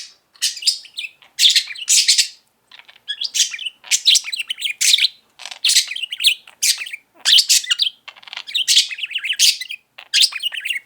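Pet budgerigar chattering and warbling: a run of short, high, scratchy bursts of chirps about one a second, its steady babble of bird sounds.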